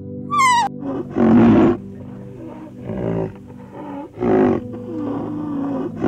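A short, high falling squeal just after the start, then loud, rough animal calls: a long one about a second in, a shorter one around three seconds, another past four seconds, and a fourth starting at the end. Under them runs a steady musical drone.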